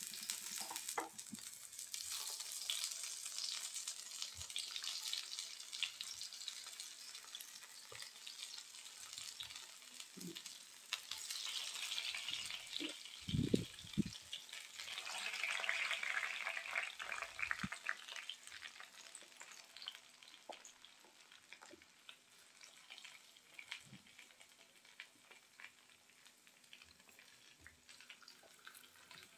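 Thick slices of sweet pumpkin sizzling in hot mustard oil in a frying pan, the sizzle swelling as more slices go in, with a few soft knocks. The sizzling dies down over the last third.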